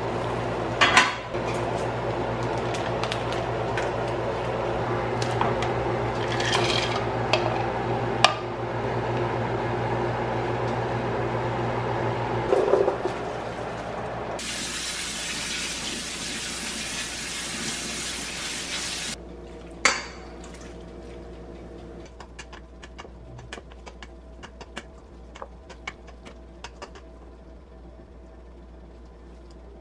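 Pot of water boiling on a gas stove with a steady low hum. About twelve seconds in, the pot is tipped into a stainless-steel colander in the sink with a splash, followed by a few seconds of rushing water. After that come small clicks and scrapes of a wooden spoon tossing noodles in a stainless-steel bowl.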